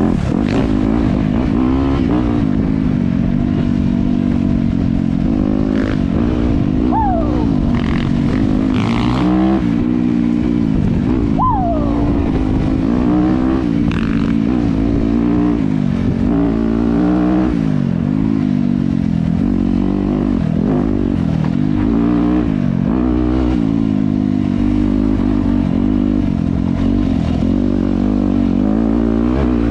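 Dirt bike engine running continuously, its pitch rising and falling again and again as the throttle is opened and closed.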